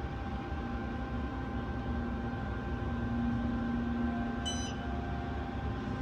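Steady hum with a few unchanging tones inside the cab of an Otis hydraulic elevator, the low part of the hum swelling a little midway. A short high beep sounds once, about four and a half seconds in.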